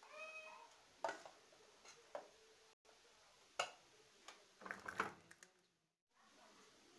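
Scattered sharp clicks and light knocks of a metal spoon against a stainless-steel pot of pancake batter, with a quick cluster of them about five seconds in.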